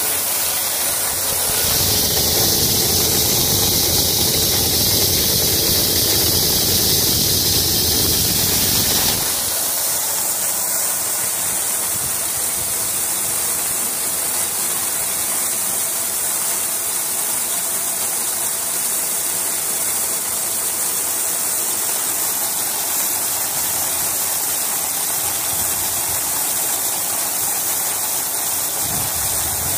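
Whole-kernel corn pouring steadily from a vending machine's chute into a plastic barrel, a continuous rush of kernels falling onto the pile. The sound is louder and fuller for the first nine seconds or so, then changes abruptly to a thinner, steady rush.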